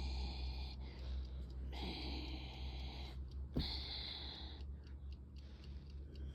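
A sleepy Shiba Inu sighing: three long, breathy exhalations, with a short click about halfway through over a steady low hum.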